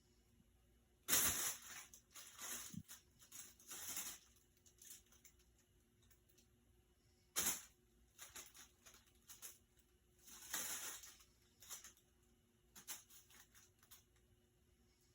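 Plastic crinkling and rustling in several short bouts, loudest about a second in and again at about seven and a half seconds, with lighter rustles between.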